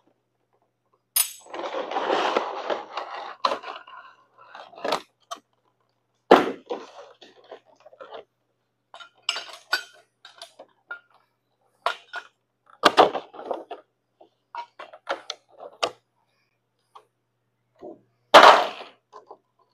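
Irregular metallic clinks and knocks of sheet metal parts and hand tools being handled and struck, with a rough scraping noise lasting about two seconds starting about a second in.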